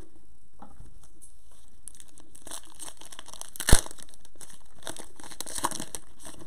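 Wrapper of a Panini Prizm basketball card pack crinkling and tearing as it is ripped open by hand, with one sharp snap about halfway through.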